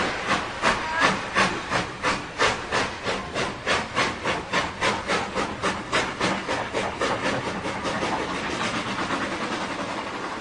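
Steam locomotive exhaust beats, at first about three chuffs a second and quickening toward four. Partway through they soften and blur into a steady hiss that grows quieter near the end.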